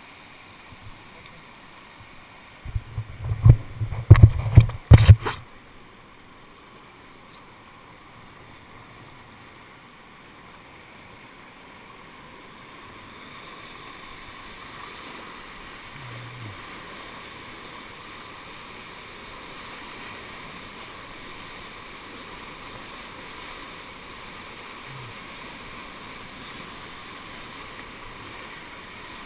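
Rushing whitewater of a creek rapid as a kayak runs it, a steady noise that slowly grows louder as the boat heads down the rapid. About three to five seconds in, a cluster of loud knocks and thumps, the loudest thing here.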